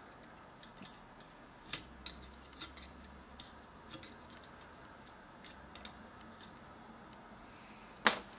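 Scattered light clicks and taps from hands and a small tool handling a TV switch-mode power supply circuit board, with one sharper click near the end.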